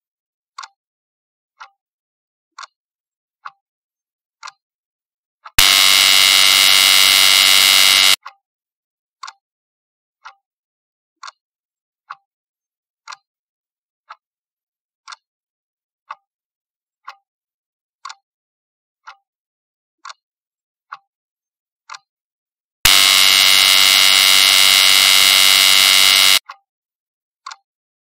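Countdown-timer sound effect: a clock ticking about once a second, twice broken by a loud buzzer lasting about three seconds as the timer runs out.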